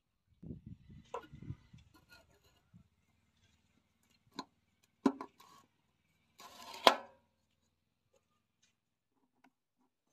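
Metal filler cap being handled on a power tiller's sheet-metal tank: scattered clinks and knocks, then a short scrape ending in a sharp clack as the cap is twisted shut, the loudest sound, about seven seconds in.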